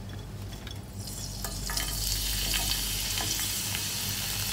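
Hot oil in a frying pan sizzling as chopped ginger, green chilli and curry leaves drop in. The hiss swells over the first two seconds, then holds steady with scattered small pops.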